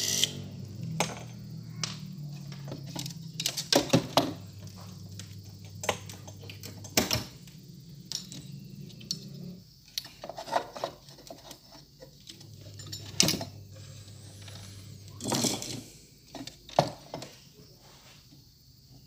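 Clicks and knocks of tools and a circuit board being handled while output transistors are desoldered from an amplifier board, over a steady low hum that drops out for a few seconds around the middle.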